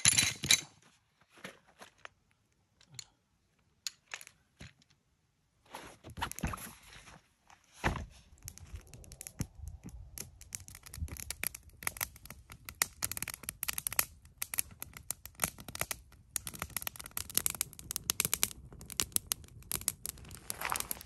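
Campfire of dry sticks and branches crackling and popping. There is a brief louder rush at the very start, then sparse pops. From about eight seconds in comes a dense, steady run of crackles over the low rush of the flames.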